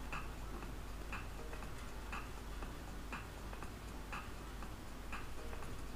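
A clock ticking faintly, one tick about every second, six ticks in all, over a low steady hum.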